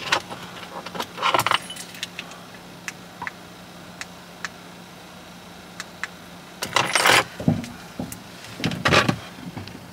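Keys jangling in short bursts, about a second in and twice near the end, over a faint steady hum that stops about seven seconds in.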